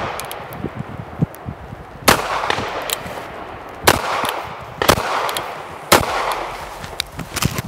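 Four shots from a North American Arms Pug .22 WMR mini revolver, unevenly spaced one to two seconds apart, each followed by a ringing echo.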